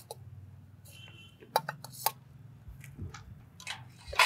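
Metal spoon scraping and knocking against a steel bowl and the rim of an aluminium cooking pot as onion paste is tipped into the pot: a series of sharp clicks and clinks.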